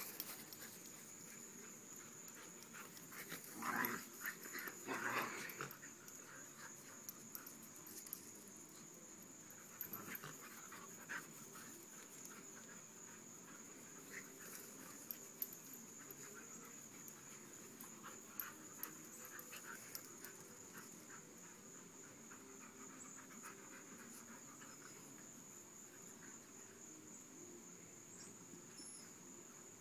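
Dogs at play: two Dalmatians chasing each other, with short bursts of dog noise about four and five seconds in, then only faint scattered sounds. A steady high-pitched drone runs underneath.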